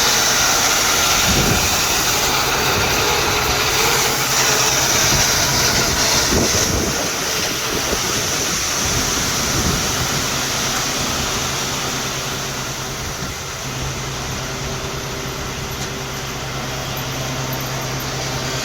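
An engine running steadily under a constant hiss, with a few short knocks in the first half.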